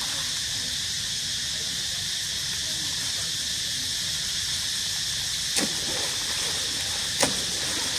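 Steady high hiss of background noise, with two short sharp sounds near the end, the second about a second and a half after the first.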